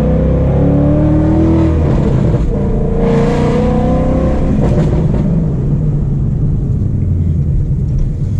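Ford Mustang GT's V8 engine pulling hard under acceleration, its pitch climbing, pausing briefly about two seconds in, and climbing again. After about five seconds it settles to a steady, lower drone.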